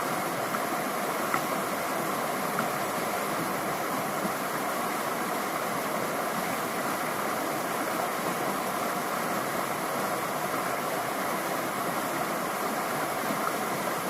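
Steady rushing of creek water, an even watery noise that holds at one level.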